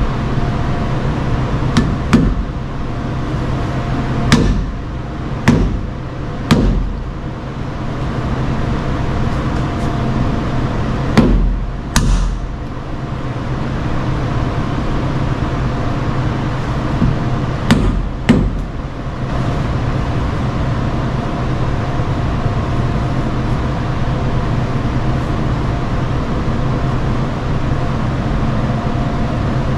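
Sharp metal knocks and taps, about nine in all and several in close pairs, from parts and hand tools being worked at a VW front wheel hub. A steady hum runs underneath, and the knocks stop about two-thirds of the way through.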